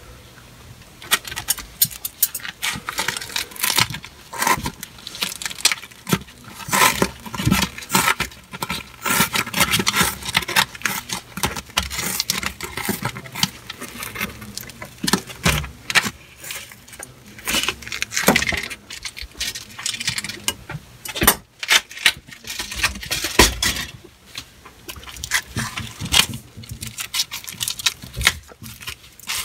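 Scissors cutting through a gritty black patch wrap on a cast iron drain pipe: many irregular snips and crunches, with the rustle and scrape of the wrap being handled.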